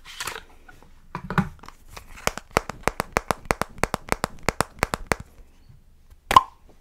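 Fingernails tapping quickly on the plastic tube of a sunscreen stick, about six sharp taps a second for some three seconds, after a brief rustle of its cardboard box. A single sharp click comes near the end.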